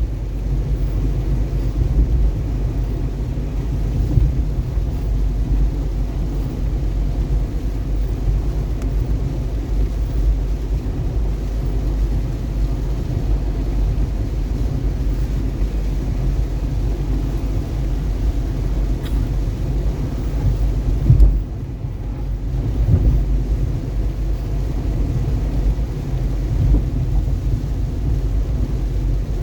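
Steady low rumble of a car driving on a wet freeway in heavy rain and gusty wind, with one brief loud thump about two-thirds of the way through.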